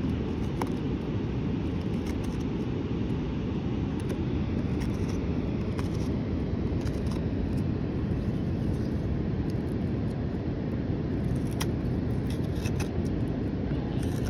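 Steel hook knife cutting into butternut wood, a few faint clicks and scrapes as it hollows a spoon bowl, over a steady low outdoor rumble.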